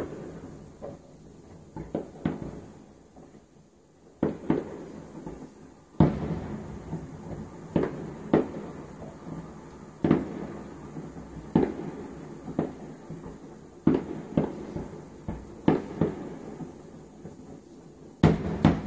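Aerial fireworks bursting: a string of sharp bangs at uneven gaps of one to two seconds, each trailing off in a low rolling echo. Near the end a cluster of bangs comes close together.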